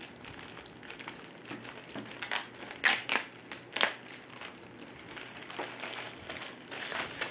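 Packaging crinkling and rustling in irregular bursts as the HDMI cable is handled and unpacked, loudest about three to four seconds in.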